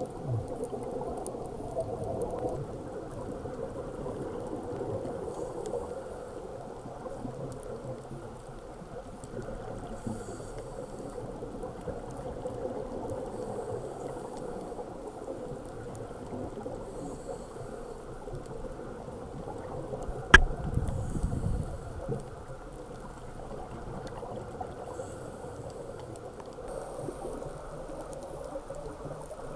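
Underwater sound of a scuba diver breathing on a regulator: a steady low wash with bubbles gurgling and hissing every few seconds. A sharp click about twenty seconds in, followed by a brief low rumble.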